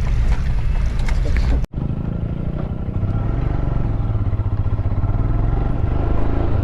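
Engine and wind noise that cut off abruptly under two seconds in, then a Royal Enfield Himalayan's single-cylinder engine running steadily with an even low pulse.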